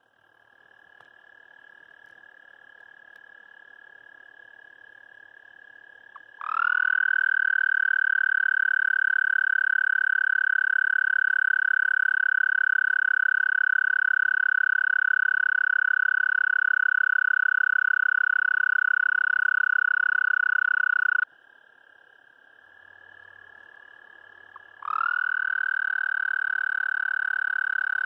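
Male American toad (Anaxyrus americanus) giving its mating call: a long, loud, steady high trill that starts about six seconds in, holds for about fifteen seconds, cuts off suddenly, and starts again near the end. A fainter, slightly higher trill is heard in the gaps.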